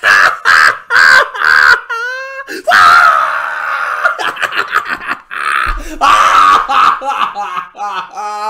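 A man's loud, exaggerated screaming laughter: choppy bursts, a long strained shriek, then rapid staccato cackles near the end.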